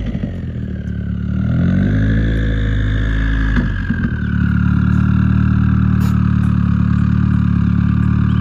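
Car engine with a loud exhaust running: its pitch climbs a little about two seconds in, and after a brief unsettled moment about four seconds in it runs steadily and louder.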